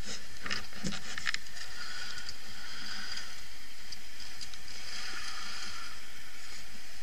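Quad engine running at low revs as the ATV crawls over a boulder pile, with a few knocks in the first second or so.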